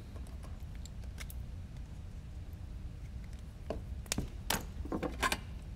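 Small hand tools and parts being picked up and set down on a workbench: a few light clicks and clinks bunched in the last two seconds, over a steady low hum.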